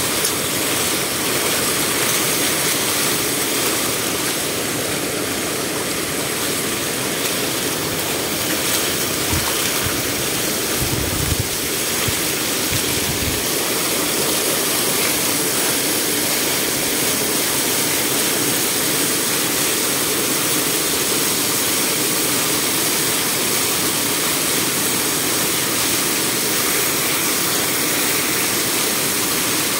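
Water pouring steadily over the stone sill of a water gate in a continuous rush, with a few dull low bumps about ten to thirteen seconds in.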